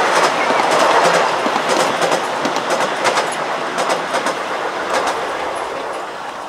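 The riding cars of a 7¼-inch gauge miniature railway train rolling past, their wheels clicking irregularly over the rail joints, growing fainter over the second half as the train moves away.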